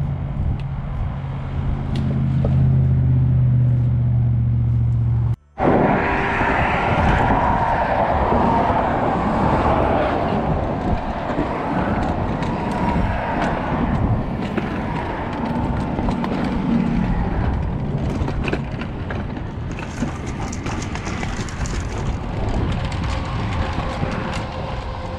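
Road traffic: a steady low engine drone, a brief dropout about five seconds in, then a continuous, uneven rush of traffic noise mixed with wind on the microphone.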